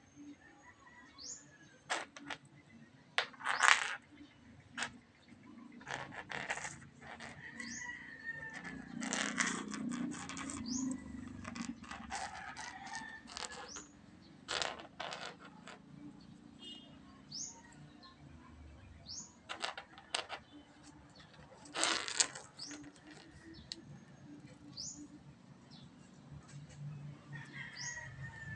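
A kitten playing: scattered taps, knocks and rustling, with short high chirps now and then.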